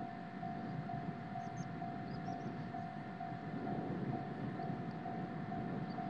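Japanese level-crossing alarm ringing its electronic "kan-kan" warning, about two strokes a second, while the crossing is closed. A low rumble runs underneath, a little louder from about four seconds in.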